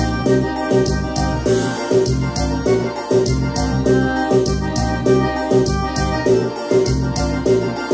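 Korg Pa700 arranger keyboard playing an instrumental piseiro passage: an organ- and electric-piano-like keyboard melody over a steady, fast drum beat with even kick and hi-hat.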